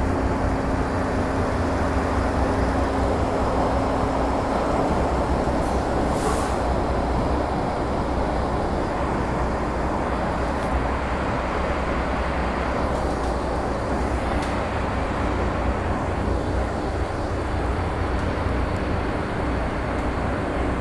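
Cabin noise of an MTR Metro-Cammell M-Train electric multiple unit running through the tunnel: a steady, loud rumble of wheels on rails and running gear. A faint steady tone sounds for the first few seconds, and a brief high hiss comes about six seconds in.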